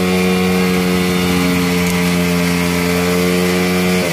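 Motorcycle engine held at high, steady revs, its pitch dropping at the very end as the throttle is let off.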